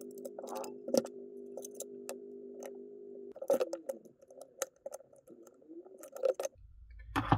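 Light clicks and taps of the jigsaw's plastic clamshell and internal parts being handled and lifted apart, over a soft steady hum of several tones that wavers about halfway through.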